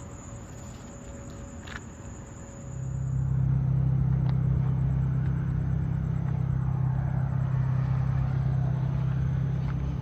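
A steady low motor hum swells in about two and a half seconds in and then holds at an even pitch, over a faint high steady whine.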